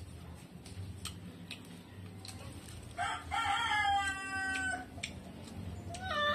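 A rooster crowing: one long call of about two seconds in the middle, its held note sliding slightly down, then a short second call begins near the end.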